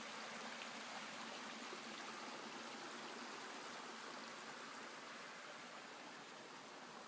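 Small creek waterfall: an even, steady rush of running water, growing a little fainter toward the end.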